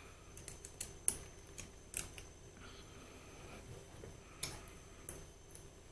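Light, scattered clicks and taps from small lathe topslide parts and tools being handled and adjusted, a quick run of them in the first couple of seconds and two more near the end.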